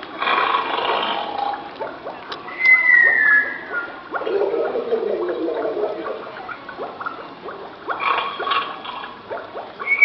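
Animatronic talking fountain snoring through its loudspeakers in a repeating cycle: a rasping snore on the in-breath, then a whistle that falls in pitch on the out-breath, and a lower falling groan. Fountain water splashes underneath.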